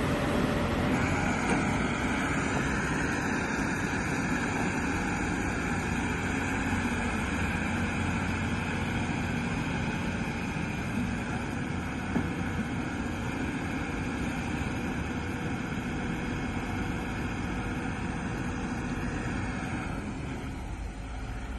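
Excavator engine running steadily under work, with a whining note that comes in about a second in and fades near the end.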